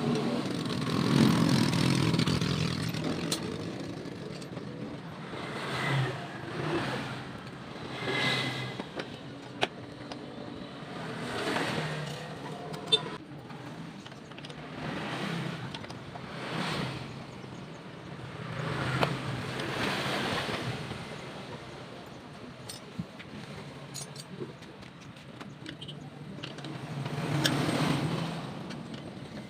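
Motor vehicles passing one after another, each a swell of engine and tyre noise that rises and fades within a second or two, with a few sharp clicks between them.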